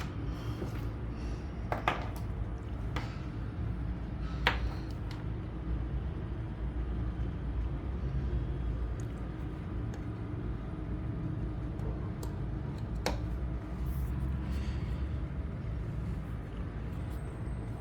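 A steady low hum, with a few scattered clicks and knocks from charging cables and plugs being handled.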